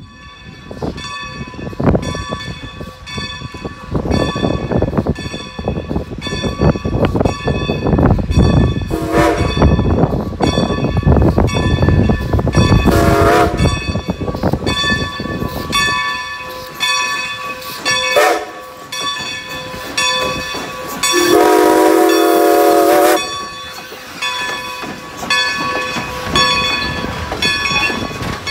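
Ex-Great Western 2-10-0 steam locomotive No. 90 with its bell ringing steadily and its steam whistle sounding four blasts, the last one long. A low rumble of the moving train fades about halfway through.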